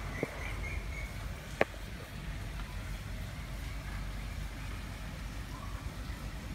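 Outdoor background with a steady low rumble, a faint bird chirping in the first second, and a single sharp click about a second and a half in.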